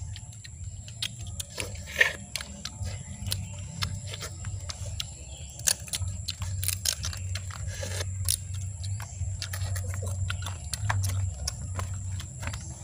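Cooked crab shells cracking and snapping as they are broken apart by hand, a scatter of small irregular clicks and cracks over a low steady rumble.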